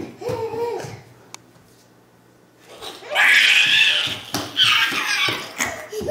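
A toddler babbling briefly, then after a short lull giving two long, breathy, high-pitched excited squeals.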